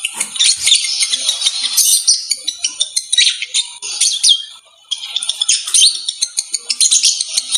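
Lovebirds chattering: a dense run of rapid, high-pitched chirps and squeaks, with a brief lull about halfway through. It is the breeding-mood chatter that the video offers as lovebird mating calls.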